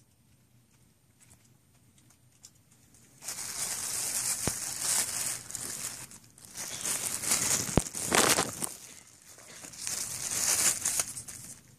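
Thin plastic carrier bag crinkling in repeated bursts as it is pulled open and handled around a takeout food container, starting about three seconds in, with two sharp clicks along the way.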